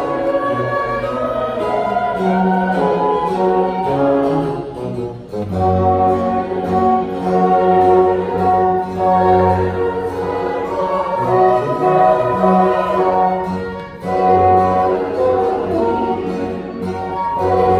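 Mixed choir singing a Baroque choral work with a period-instrument ensemble of strings, harpsichord, flute and bassoon. The music briefly thins between phrases about five and again about fourteen seconds in.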